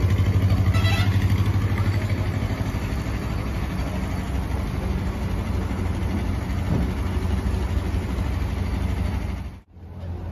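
A steady, low engine hum, which cuts off abruptly near the end.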